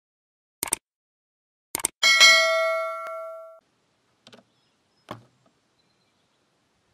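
Two short clicks, then a bell-like ding that rings out and fades over about a second and a half: a subscribe-button click-and-bell sound effect. A couple of faint knocks follow later.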